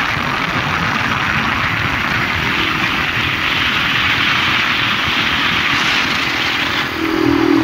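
Wind rushing over a phone's microphone on a moving motorcycle, a steady noise with the motorcycle's engine running underneath. Near the end a steady low engine hum comes through more plainly.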